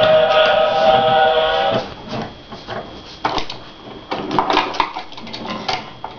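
A held musical chord of several steady notes that stops about two seconds in, followed by light, irregular clacks and knocks of wooden toy trains being handled and set on a wooden track.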